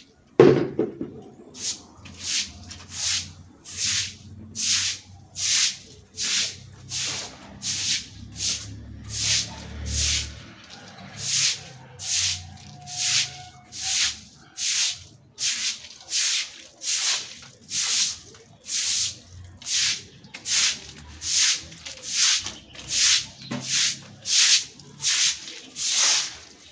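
A splash of thrown water, then a stiff broom scrubbing a wet yard floor in steady strokes, a little over one a second.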